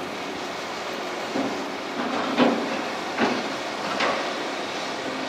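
Excavator-mounted Genesis hydraulic shear working in a pile of scrap structural steel: the machine runs steadily under a series of sharp steel-on-steel clanks, about one a second, loudest about halfway through.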